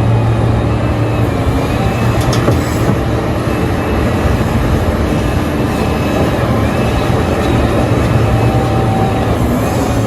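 Heavy mining machinery working: the diesel engines of excavators and dump trucks run steadily with a strong low hum, over a faint high whine that wavers in pitch. A sharp metallic click comes about two and a half seconds in.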